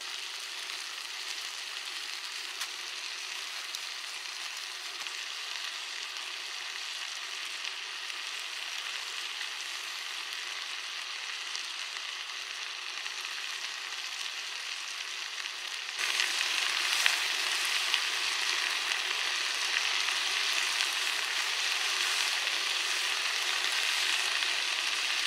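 Meat and cherry tomatoes sizzling in a frying pan on a gas camping stove: a steady frying hiss that gets louder about two-thirds of the way through.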